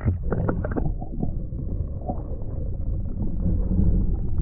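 Muffled underwater water noise around a submerged microphone. There are a few sharp splashes and knocks in the first second, then a steady low rumble and gurgle with the treble cut away.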